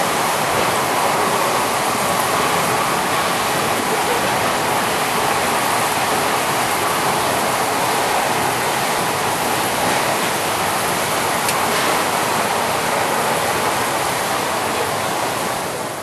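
Cable car running downhill through a tunnel: a steady, loud rushing noise of the car and its wheels on the rails, which drops away near the end as the car comes out of the tunnel.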